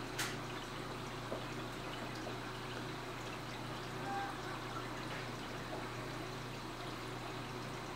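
Reef aquarium's circulating water: a steady trickle and splash of water over a constant low pump hum, with a faint tick just after the start.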